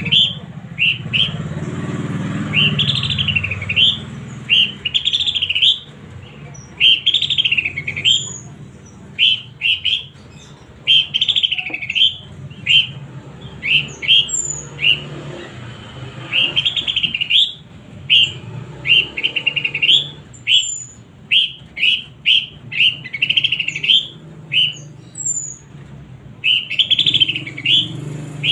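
Horsfield's babbler (pelanduk semak) calling again and again in loud, rapid bursts. It mixes short, sharp notes with longer chattering phrases, the 'nembak' and 'nyerecet' of a bird in full song.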